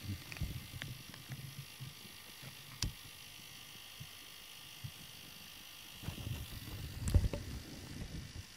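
Low rubbing and rustling from a cat being stroked and nuzzling a rubber grooming brush on a fleece blanket, with a sharp knock about three seconds in and a louder thump about seven seconds in.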